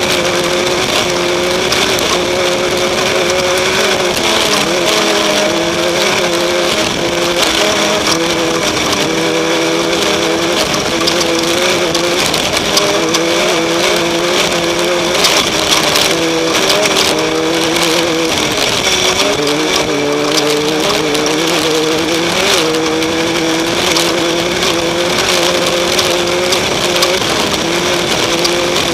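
Off-road race car's engine running hard, its revs repeatedly rising and falling, over a constant noisy rattle with frequent short knocks.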